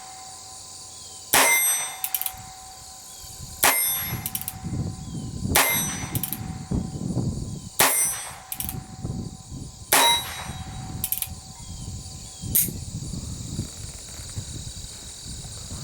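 A Colt Frontier Scout .22 Long Rifle single-action revolver with a 9.5-inch Buntline barrel fired five times, about two seconds apart, each sharp crack followed by a short metallic ring. A steady high insect drone runs behind.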